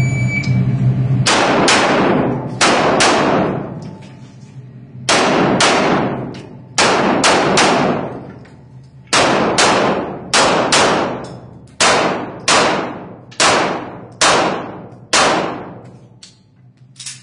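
IPSC handgun course of fire: a short high shot-timer beep, then a little over a second later a string of pistol shots, mostly fired in quick pairs with brief pauses between. Each shot has an echoing tail.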